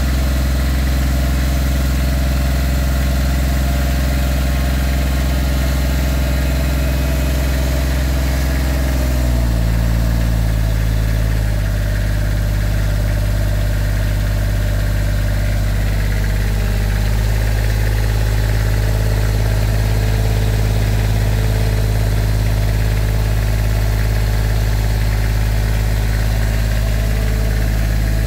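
Volvo Penta inboard marine diesel engine running close up in its open engine box. It runs steadily, then about nine seconds in the revs drop over a couple of seconds to a slower idle, which it holds.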